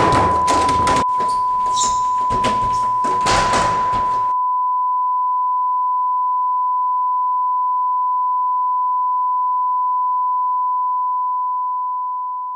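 A single steady electronic beep tone, like a test tone, held unbroken and fading out at the end. For roughly the first four seconds it is overlaid by banging and knocking on a door and scuffling noise, which then cut off suddenly and leave the tone alone.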